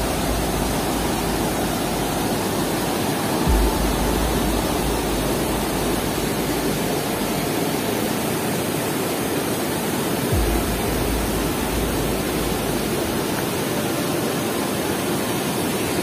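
Waterfall and rapids: a steady, dense rush of white water pouring over rock shelves.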